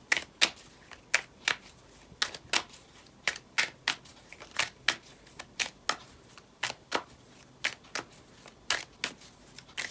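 A deck of tarot cards being shuffled by hand: a steady run of short, sharp card clicks, about two or three a second.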